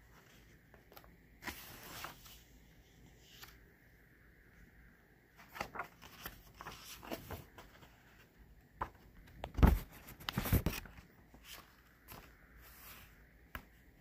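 Pages of a hardbound book being turned and handled, paper rustling and sliding in several short bursts. A couple of louder bumps come around ten seconds in.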